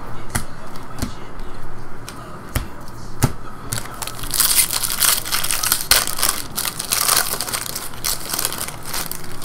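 Trading cards being handled with a few sharp clicks, then, about four seconds in, a Bowman foil card pack wrapper crinkling loudly for several seconds as it is pulled out and opened.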